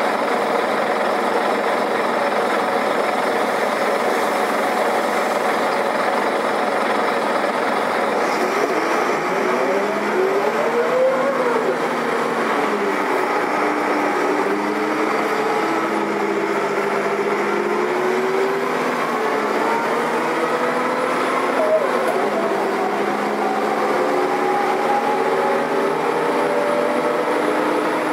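Karosa B941 articulated city bus engine running while the bus is under way, over steady road and drive noise. Its pitch climbs and falls as the bus accelerates and shifts, about eight seconds in and again a little past twenty seconds.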